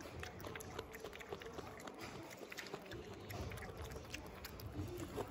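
Raccoon eating corn kernels, peas and diced carrot from a hand, chewing and smacking: a run of small, irregular clicks and crunches.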